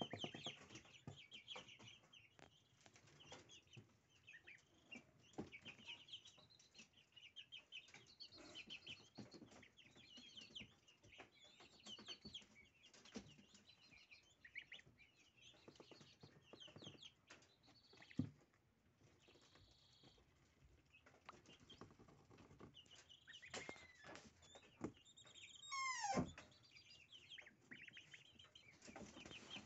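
Goslings peeping faintly over and over in short high chirps, with scattered light clicks and rustles as they peck at dill and bedding. About 26 seconds in, a louder call falls steeply in pitch.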